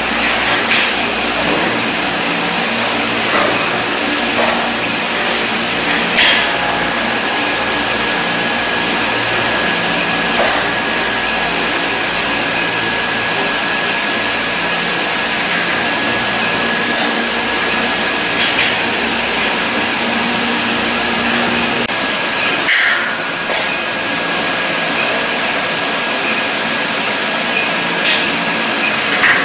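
Steady machine noise from an induction brazing rack for diamond saw blades, with a thin high whine that starts with a click about six seconds in and stops with another click about sixteen seconds later, and a few light clicks.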